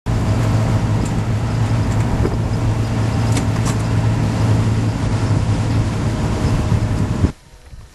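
A loud vehicle engine running at a steady pitch, with no revving up or down. It cuts off abruptly near the end.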